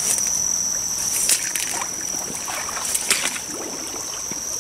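Footsteps sloshing and squelching through mud and shallow water among wet plants, with louder splashes about a second in and again about three seconds in. A steady high insect chirring runs underneath.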